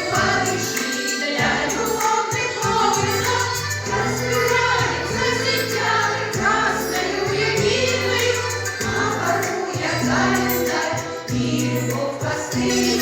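Russian song performed by a vocal ensemble singing together over instrumental accompaniment with a steady, stepping bass line.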